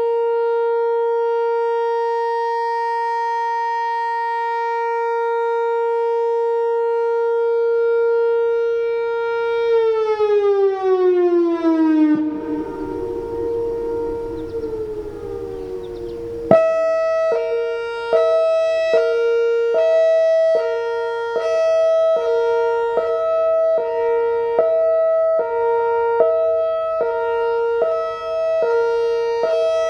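Whelen WPS-4004 electronic outdoor warning siren sounding a steady tone, which glides down in pitch about ten seconds in. After a few seconds of rougher, falling sound, it switches to a hi-lo signal that alternates between two pitches a little more than once a second.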